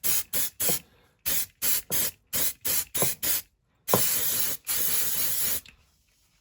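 White primer paint sprayed from an aerosol can in about ten short puffs, then two longer sprays of about a second each, laying on thin coats.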